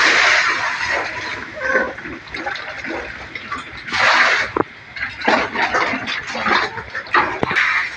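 Wet pig feed splashing into a trough in repeated surges as it is poured from a scoop, with pigs slurping and chomping at it.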